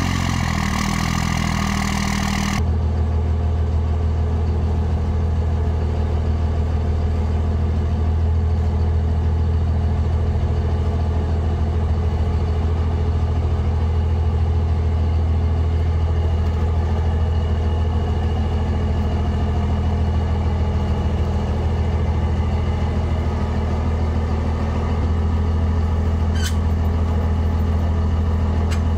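Dodge truck's 24-valve Cummins straight-six turbo diesel just after starting, loud and rough for about two and a half seconds, then settling into a steady idle. A brief high squeak sounds near the end.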